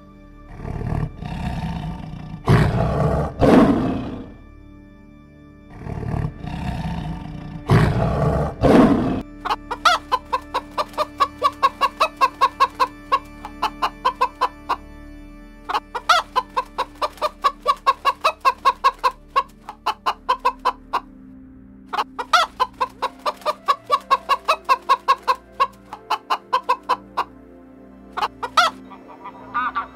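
A lion roaring four times in the first nine seconds, then a hen clucking in quick runs of about four clucks a second, with short pauses between the runs.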